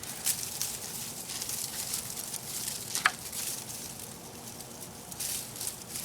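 Dry palm frond rustling and crackling as a puppy tugs and chews at it, in irregular scrapes, with one sharp click about three seconds in.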